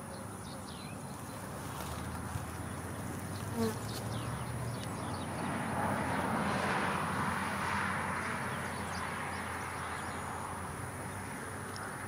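Honeybee swarm buzzing: a steady, dense hum of many bees from a calm swarm clustered on a tree limb, growing louder from about five seconds in.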